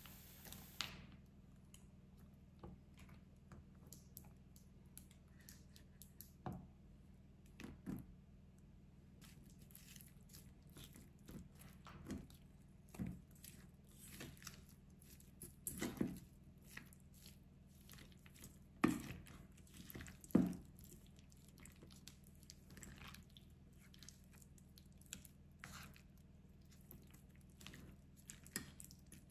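Wooden spoon stirring chopped strawberries and soft white cheese in a stainless steel bowl: soft wet squelching with scattered knocks of the spoon against the bowl, over a faint steady low hum.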